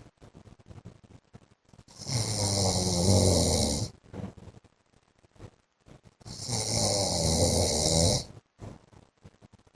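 A man snoring in his sleep: two long snores, each about two seconds, roughly four seconds apart, each a low buzz with a hiss on top, with near-quiet gaps between.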